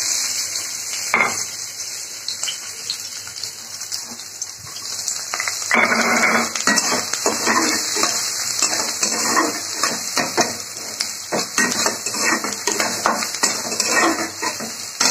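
Chopped onions sizzling in hot oil in a kadhai, with a metal spatula scraping and clacking against the pan as they are stirred. The stirring clatter comes mostly from about six seconds in, over the steady hiss of the frying.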